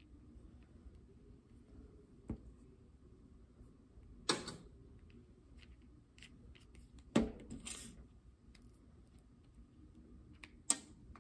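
Scattered sharp clicks and taps, the loudest about four, seven and ten and a half seconds in, from an acrylic paint tube being handled while yellow paint is squeezed out onto palette paper.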